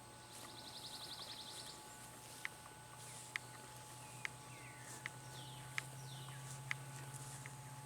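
Wild birds singing and calling: a fast trill of about a dozen high notes a second near the start, then scattered short chirps and down-slurred notes, over a faint low steady hum.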